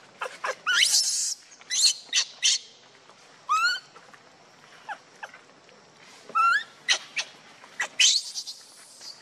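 Infant pig-tailed macaque crying in a rapid series of short, high-pitched squeals and screeches, some rising and falling in pitch, while begging its mother to nurse.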